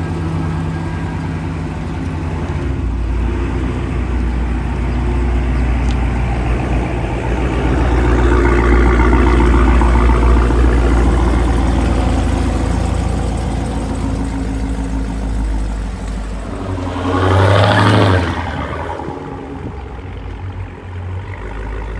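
Dodge Charger V8 engines rumbling as the cars idle and pull away, louder for a few seconds in the middle. A short, sharp rev rises about seventeen seconds in, then the engine sound fades as the cars move off.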